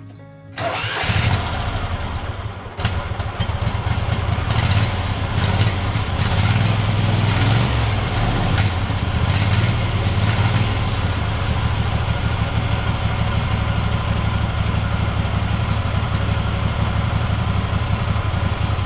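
Kohler CV674 23 hp V-twin lawn-tractor engine starting about half a second in and keeping on running, its head gaskets freshly replaced.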